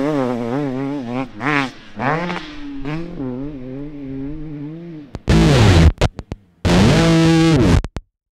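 Motocross dirt bike engine revving up and down, the throttle blipping rapidly and the sound fading away. About five seconds in, two loud bursts of distorted electric guitar music come in, the second held, and cut off abruptly near the end.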